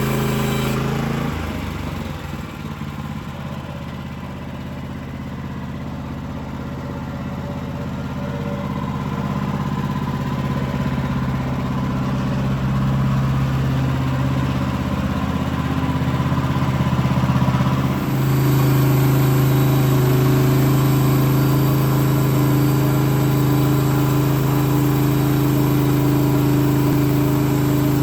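Woodland Mills HM130 Max portable sawmill's engine running steadily. Its note drops and softens about a second in and comes back up abruptly about two-thirds of the way through.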